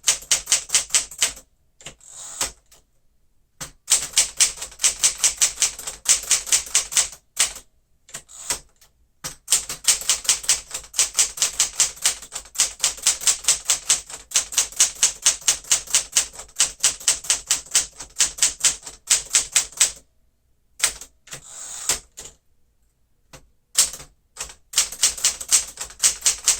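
1961 Smith-Corona Galaxie manual typewriter being typed on: fast runs of sharp key-and-typebar strikes against the platen, several a second, broken by short pauses and a few brief sliding sounds in the gaps, typical of the carriage being returned.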